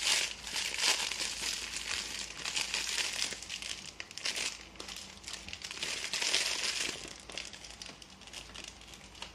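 Clear plastic packaging bag crinkling as hands unwrap a small LED bicycle light. It is loudest near the start and again about six seconds in, then tapers off.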